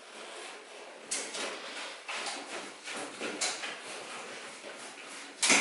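Windscreen glass in its rubber seal being shifted and pushed to centre it in the front window aperture of a 1973 VW bay window camper: a few short scrapes and knocks, the loudest near the end.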